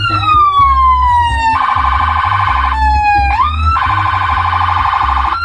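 Electronic siren tones from a phone siren app, switching patterns: a slow falling wail, then a fast warble, a quick upward sweep about three seconds in, and another fast warble. A low steady hum sits underneath.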